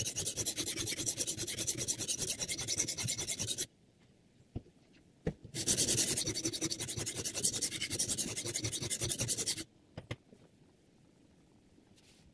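Sharpening stone on the guide rod of a Hapstone R2 guided knife sharpener stroked rapidly back and forth along a clamped knife's edge, sped up three times: a dense scraping rasp. The strokes stop a little over a third of the way in, a couple of light clicks follow, then a second run of strokes ends about two-thirds through, followed by a few more clicks.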